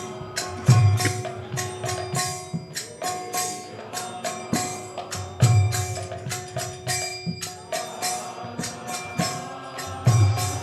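Instrumental break in a devotional kirtan: hand cymbals clashing in a steady, fast rhythm, with three deep drum strokes about five seconds apart and a steady held note underneath.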